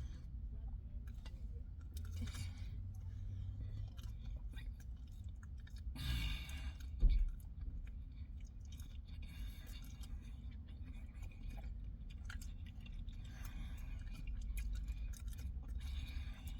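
A person chewing mouthfuls of a pork roll sandwich on a soft pretzel roll, with wet mouth sounds, over a steady low hum. There is a brief thump about seven seconds in.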